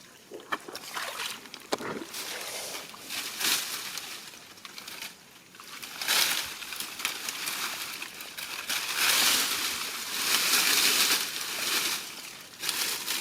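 Shallow paddy-field water sloshing and splashing in irregular surges as someone works through it by hand, loudest about six seconds in and again in the latter part.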